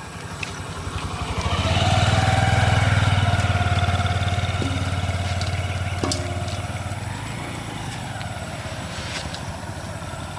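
A small motor vehicle's engine passing by: it grows louder over about the first two seconds, then slowly fades away.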